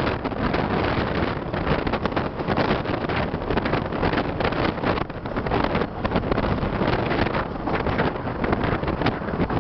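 Running noise of a passenger train heard from an open coach window: a steady rush of wheels on rail mixed with wind buffeting the microphone in quick uneven gusts.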